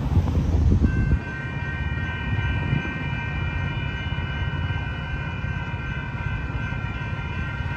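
Railroad grade-crossing warning bells start ringing about a second in and keep going with a steady, high ringing as the crossing signals activate, the warning that a train is approaching. Before they start, cars drive over the crossing.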